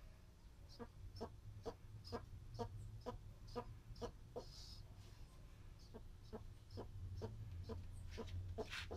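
Red-footed tortoise clucking like a hen: a steady run of short clucks, about two a second.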